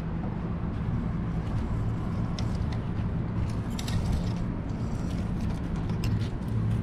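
Steady low mechanical hum with a few faint light clicks.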